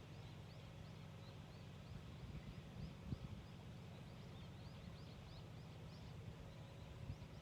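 Small bird chirping over and over in quick short high notes, each dropping in pitch. Beneath it runs a steady low pulsing rumble.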